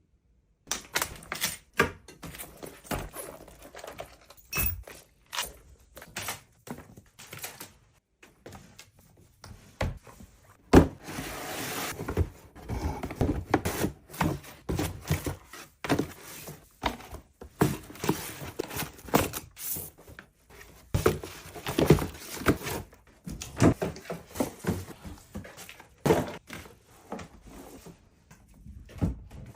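Household cleaning sounds: a long run of irregular knocks and clunks as objects are handled and set down, with a few stretches of rubbing noise.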